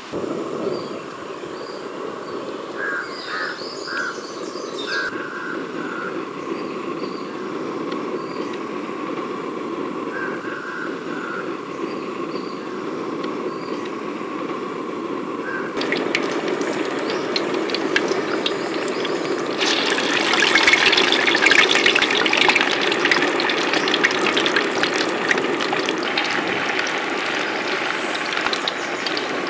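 Mutton vadas deep-frying in hot oil in an aluminium kadai: a crackling sizzle full of tiny pops that sets in about sixteen seconds in and turns dense and loudest a few seconds later. Before that, a steady low rush, with birds chirping a few times.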